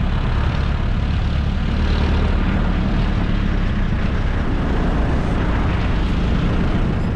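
Jeepney's engine running steadily with road and wind noise, a loud low drone heard from inside the passenger cab.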